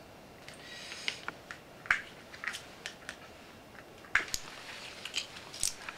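Small plastic clicks and rattles of a pill organizer being handled, its compartments opened and shut, with sharper clicks about two seconds and four seconds in.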